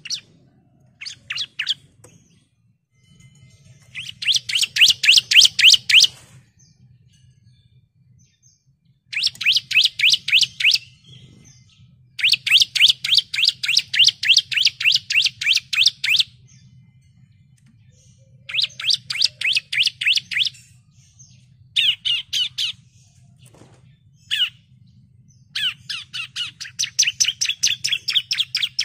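Bar-winged prinia (ciblek) singing: phrases of rapid, sharp, high chirping notes, about five or six a second, each phrase lasting one to four seconds with short pauses between, repeated again and again.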